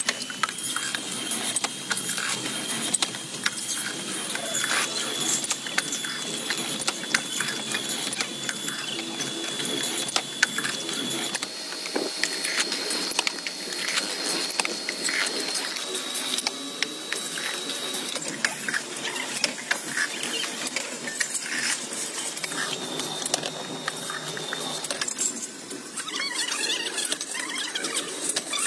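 Workshop machinery running: a continuous clatter of rapid clicks and rattles over a thin, steady high whine, from a seaming machine rolling the lid onto a spin-on oil filter can. The whine shifts pitch a little over a third of the way in.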